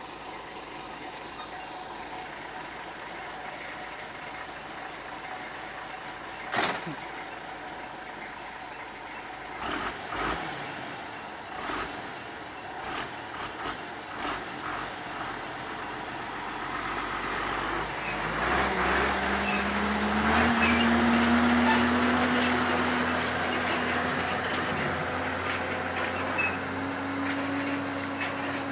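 Diesel truck tractor pulling a container trailer, its engine running as it manoeuvres slowly. There is a sudden sharp burst about six seconds in and several shorter ones between ten and fifteen seconds. From about eighteen seconds the engine revs up, its pitch rising slightly, and it gets louder as the rig moves off.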